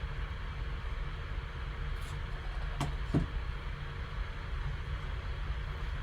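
Steady background hum and hiss, with two faint clicks close together about three seconds in, typical of handling packaging while opening a card box.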